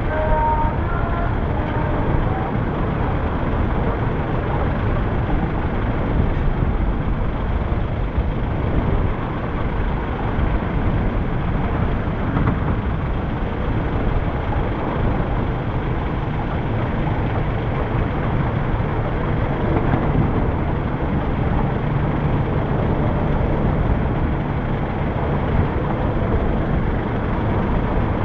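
Steady road and traffic noise picked up from a vehicle moving along a town street: a dense low rumble of engines and tyres. A low engine hum holds steady for a few seconds after about twenty seconds in.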